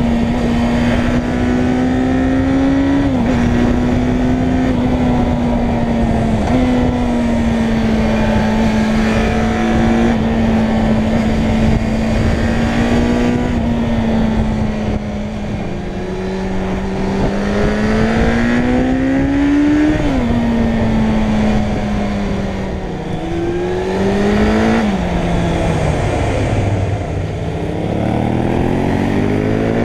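Suzuki Bandit 600 N's inline-four engine pulling under way, its note climbing and then dropping suddenly several times as it shifts gear, over steady wind rush on the microphone. Near the end the note falls lower.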